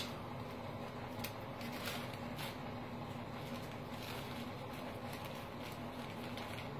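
Faint, scattered rustling and soft ticks of a paper coffee-filter face mask being handled and adjusted at its top edge, over a steady low hum.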